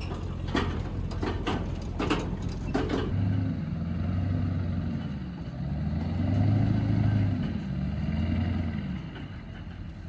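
A vehicle engine running, its pitch rising and falling several times as it is driven through a turn, with a few sharp knocks in the first three seconds.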